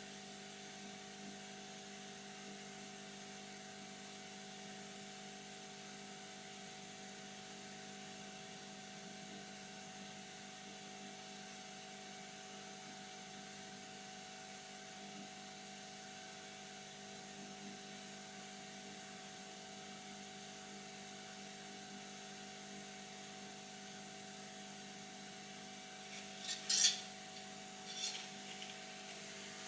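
Steady electrical hum and hiss at a repair bench, with a few light, sharp clicks near the end.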